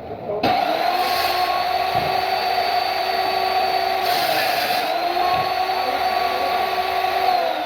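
A woodworking power tool's electric motor starting abruptly and running with a steady high whine. The pitch sags briefly about halfway through and drops near the end.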